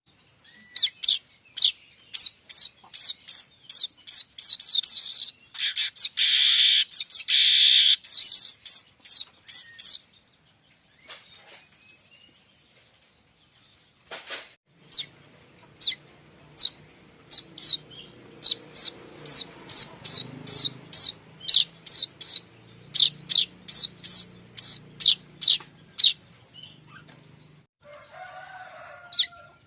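Manyar kembang weaver bird calling: a long series of short, sharp, high chirps, one or two a second, with a denser buzzy chattering burst a few seconds in. The calls pause briefly midway, then resume over a faint low hum.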